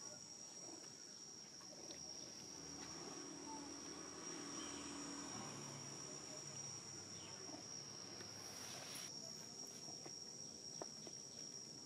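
Faint, steady, high-pitched drone of insects, cricket- or cicada-like, holding one pitch throughout.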